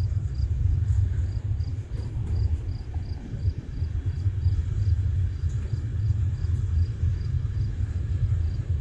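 A continuous low rumble that flutters in level, with a faint high insect chirp repeating evenly about three times a second over it.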